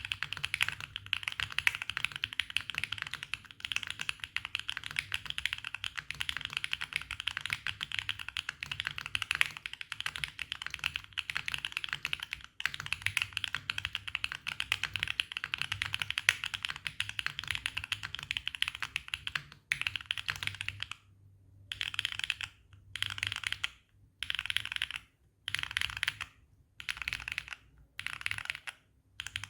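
Neo80 mechanical keyboard with Epomaker Wisteria tactile switches in an FR4 plate and no foam, being typed on quickly and continuously. From about twenty seconds in, the typing comes in short bursts separated by brief pauses.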